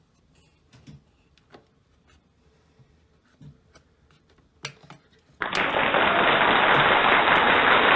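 Faint clicks and handling sounds, then an exhaust fan switches on about five seconds in and runs with a loud, steady rush of air.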